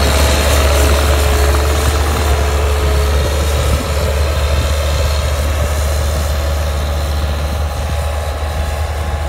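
Caterpillar compact track loader's diesel engine running steadily with a steady whine, while the machine moves sandbags and drives off over dirt. The sound grows a little quieter toward the end.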